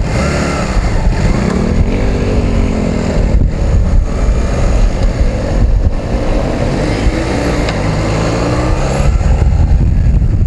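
Motorcycle engine running under way, its pitch rising and falling several times, over heavy wind rumble on the microphone.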